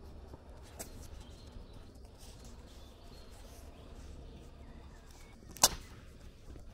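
Quiet outdoor ambience with a steady low rumble. About five and a half seconds in, one sharp click stands out: handling noise as the jacket sleeve knocks against the camera.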